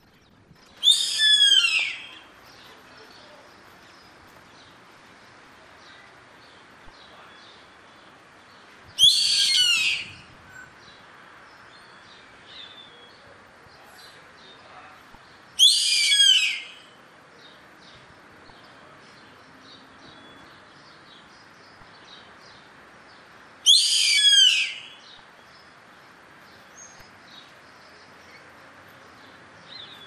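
Yellow-headed caracara calling: four loud, high-pitched calls of about a second each, spaced some seven or eight seconds apart, over a faint steady background.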